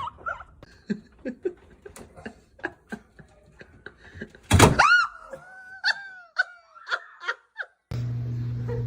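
Laughter in short choppy bursts, then a loud high-pitched squeal followed by a few whines falling in pitch. Near the end a steady low hum starts abruptly.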